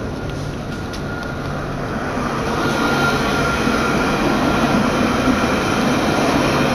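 Alstom Citadis 302 tram passing close at speed, its running noise growing louder from about two seconds in, with a thin steady whine.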